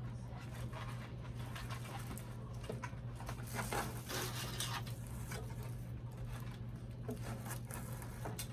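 Plastic doll packaging and small accessories being handled: scattered light clicks and taps, with a longer stretch of crinkly plastic rustling about halfway through, over a steady low hum.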